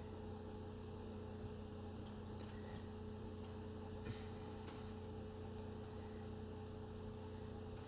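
Faint steady electrical hum of room tone, with a few faint ticks scattered through it.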